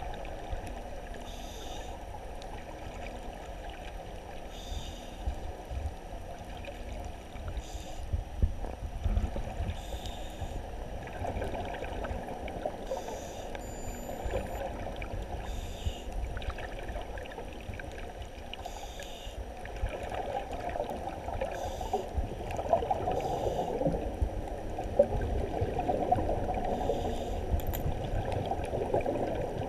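Muffled underwater sea ambience from a submerged camera: a steady low rush and sloshing of water, dull and without highs, with faint soft ticks now and then.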